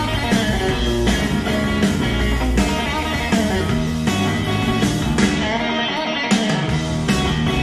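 Guitar-led rock music played loud through a pair of TAD CE1TX loudspeakers. The bass drops out for about a second near the end, then comes back in with a strong hit.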